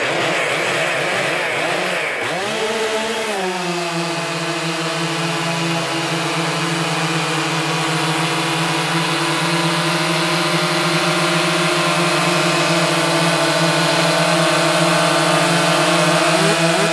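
Stihl MS 400 C two-stroke chainsaw at full throttle, cutting through a large log. Its pitch wavers and dips over the first few seconds, holds steady under load through the cut, and climbs near the end.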